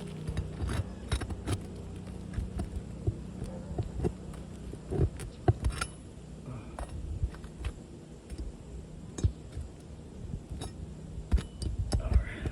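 Metal putty knife prying and scraping under old asphalt 3-tab shingles, with irregular clicks and short scrapes as the shingles are worked loose.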